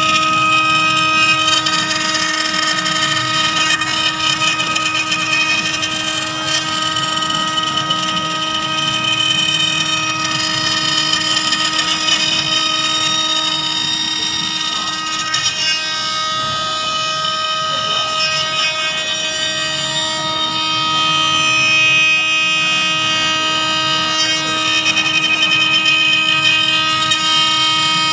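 CNC router spindle running at a steady high whine while its bit carves a wooden blank turning on the rotary axis, with a steady hiss of the cutting.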